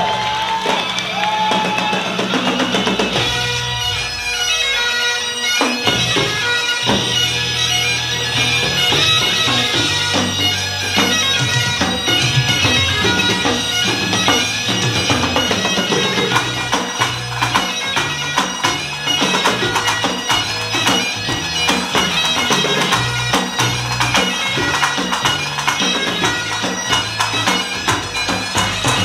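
Great Highland bagpipes playing a tune over their steady drones, with pipe band drums beating along in a fast, driving rhythm.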